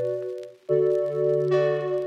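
Background music of slow, sustained chords over a low bass note. It drops out briefly about halfway through, then the next chord comes in.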